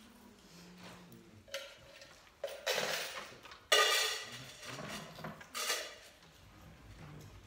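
Handling noise as objects and papers are moved and set down: several short rustling, clattering noises, the loudest a sharp clatter about four seconds in.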